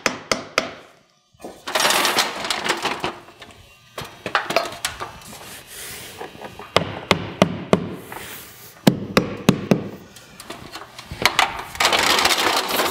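Hammer tapping nails into the nailing flange of a vinyl corner post: light strikes in quick runs of several taps, with pauses between runs. The nails are set only lightly against the vinyl so the post can still shift.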